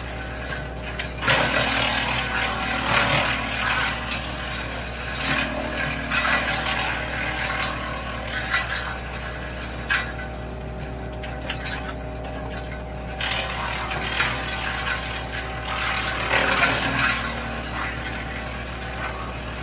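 WoodMaxx MX-8800 PTO-driven wood chipper running off a Kubota L3901 tractor: a steady hum from the drive, with repeated stretches of crackling and clattering every few seconds as apple prunings are chewed into chips, and a few sharp clicks.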